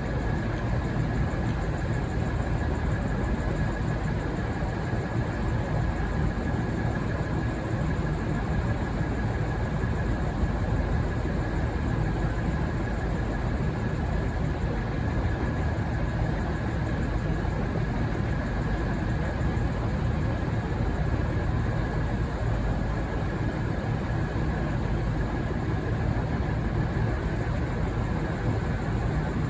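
Diesel train engine idling, a steady low rumble with a thin, unchanging high whine over it.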